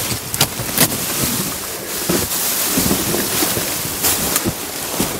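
Large plastic trash bags rustling and crinkling as they are pushed and handled, with sharp crackles now and then.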